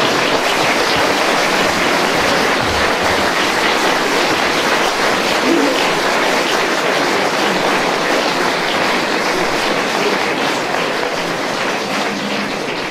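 Audience applause after a punchline, a dense steady clapping that fades away near the end.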